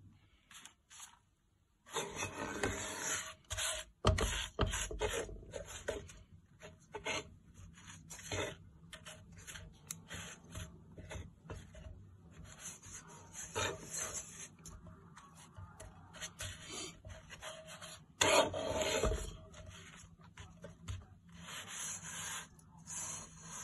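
A wooden spatula scraping and rubbing across a non-stick pan while a slice of bread is pushed around in it, in irregular strokes that start about two seconds in. The strokes are loudest about four seconds in and again around eighteen seconds.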